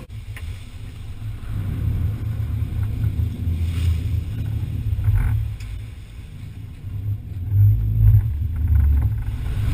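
Lifeguard rescue boat's engine running as the boat motors through surf: a low rumble that swells about two seconds in and again near the end.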